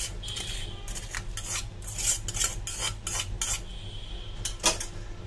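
Wooden spatula scraping grated papaya out of a stainless steel bowl into a pot of milk: a quick run of short scraping strokes against the metal, then a single sharp knock near the end.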